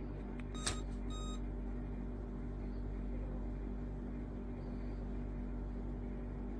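Small portable electric fan running with a steady motor hum. A click and a short electronic beep come about a second in.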